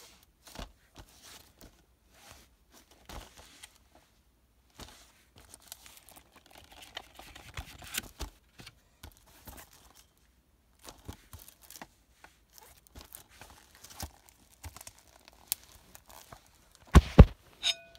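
Plastic shrink-wrap and packaging being torn and crinkled off a Blu-ray case, with scattered handling clicks. Two loud sharp knocks come near the end.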